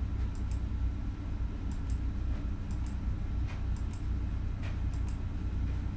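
Faint computer mouse clicks, mostly in pairs, at uneven intervals of a second or so, over a steady low hum.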